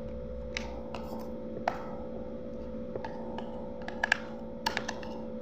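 Scattered light clicks and scratches of a plastic industrial plug being fitted together by hand and a small screwdriver working one of its screws, a cluster of quick clicks about four seconds in. A steady hum lies underneath.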